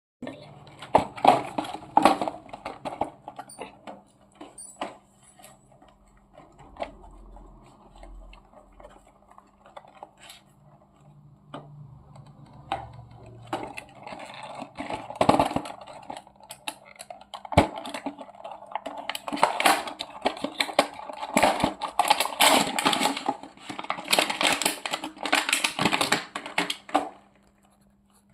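Packaging being handled and opened: rustling and crinkling with many small clicks and taps, in bursts that are busiest near the start and through the last third.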